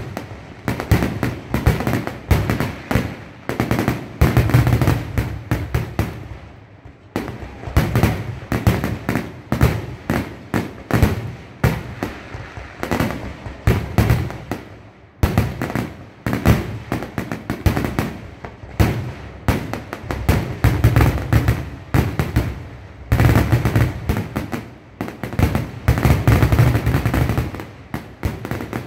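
Fireworks display: aerial shells bursting in a rapid, nearly continuous barrage of bangs and crackle. Brief lulls come about a quarter of the way in and again around halfway.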